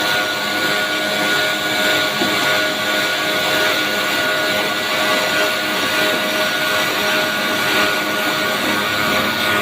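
CNC high-speed carbide sawing machine running: a steady, loud machine noise of motor and spinning saw, with a few constant tones over an even hiss and no break.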